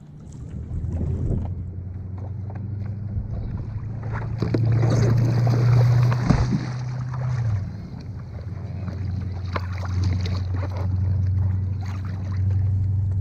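Water splashing and sloshing against a paddleboard right at the microphone as a person in the water holds onto the board, over a steady low hum.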